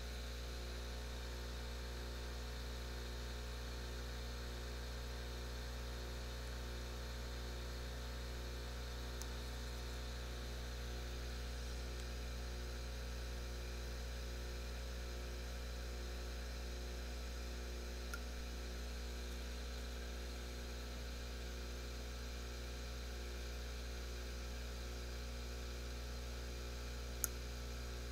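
Steady electrical hum with an even hiss, unchanging throughout, and a single small click near the end.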